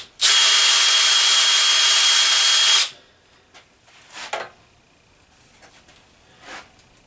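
Cordless drill running at one steady speed for about two and a half seconds, working a screw or bit through a PVC pipe coupling into a wooden block, then stopping. A couple of faint handling sounds follow.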